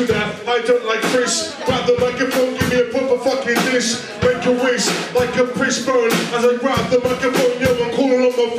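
A man rapping a freestyle into a microphone over a live drum kit keeping a steady beat, both amplified through the room.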